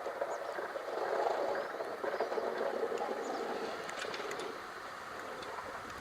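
Chevy pickup truck plowing snow, a steady noisy rumble with a few faint clicks.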